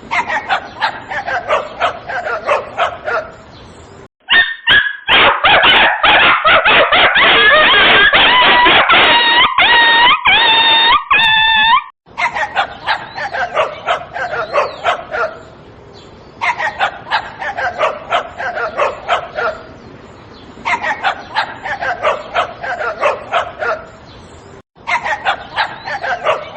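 A small dog yapping in rapid runs of short, high barks, in spells of about four seconds with brief pauses between them. From about four to twelve seconds in comes a louder, shriller stretch of quick yelps.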